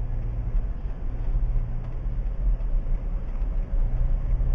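Car driving along a road, heard from inside the cabin: a steady low rumble of engine and tyres with an even hum.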